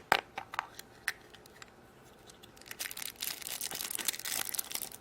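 A few light clicks, then from just past halfway a steady crinkling and tearing of a thin wrapper as a chocolate surprise's toy packet is torn open.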